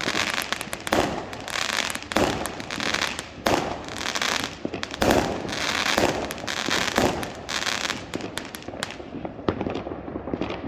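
Homemade fireworks going off: sharp bangs about once a second over a continuous fizzing crackle, thinning out near the end.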